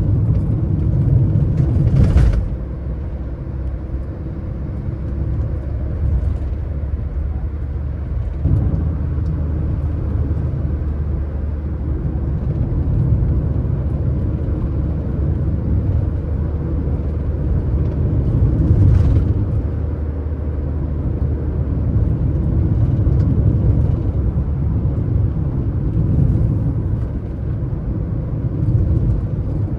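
Car driving along a road: a steady low rumble of tyres and engine, with a sharp knock about two seconds in and a fainter one near the middle, like the car going over bumps.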